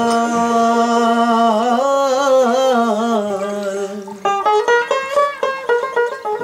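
A male Baul singer holds one long sung note that wavers in pitch in the middle. About four seconds in, the dotara takes over with a quick run of plucked notes.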